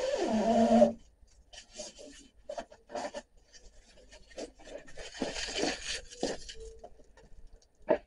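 Scraping and rubbing of things being handled: a loud scrape in the first second with a squeak that falls in pitch, then scattered knocks and another stretch of scraping about five seconds in.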